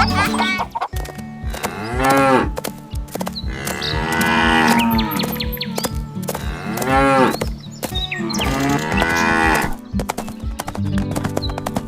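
Cows mooing, about four long calls that each rise and fall in pitch, over background music with a steady beat.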